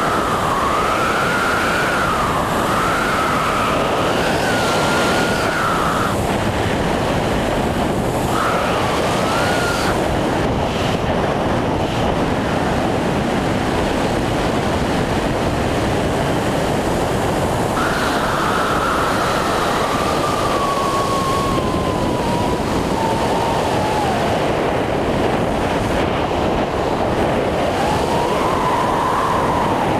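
Loud, steady rush of wind on the camera's microphone in wingsuit freefall. A wavering whistle rides over it, drops out for several seconds in the middle, then returns, slowly falls in pitch and rises again near the end.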